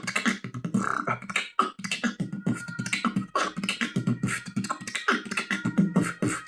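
Beatboxing by a man with chewing gum in his mouth: a fast run of vocal kick, snare and hi-hat sounds mixed with low hummed tones.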